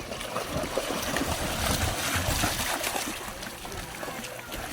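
Huskies splashing and paddling in creek water: an uneven wash of splashes and running water with a low rumble underneath, loudest in the middle.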